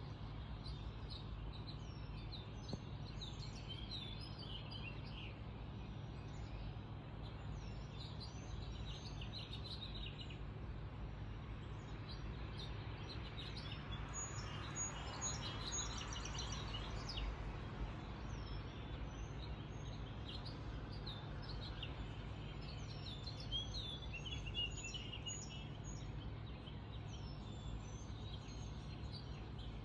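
Early-morning birdsong from several songbirds: many short overlapping chirps and whistles, busiest about halfway through, over a steady low background hum.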